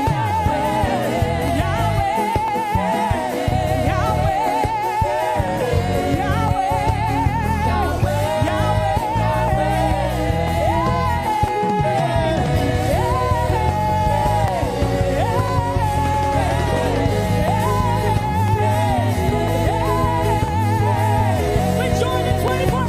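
Gospel worship music: a lead voice sings long, wavering held notes over steady instrumental backing with a deep bass.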